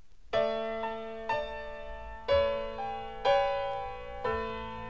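Song intro: keyboard chords struck about once a second, five times, each ringing and fading before the next, over a low steady bass.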